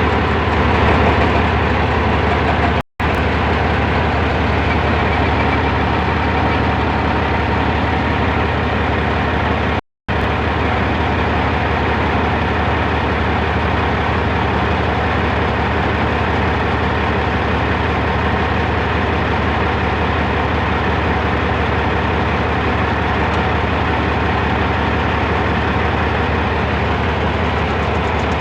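Heavy earthmoving machinery, a bulldozer and an excavator, with their diesel engines running steadily under a deep low hum. The sound cuts out for a split second twice in the first ten seconds.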